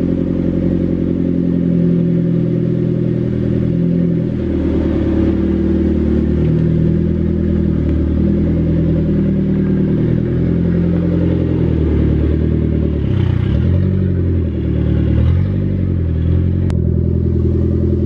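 Nissan S14's engine running at low revs, its pitch rising and falling slightly and steadily throughout.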